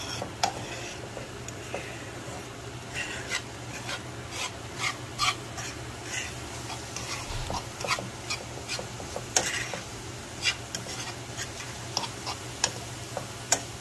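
Metal fork stirring scrambled eggs in a nonstick frying pan, the tines scraping and clicking against the pan at an irregular pace.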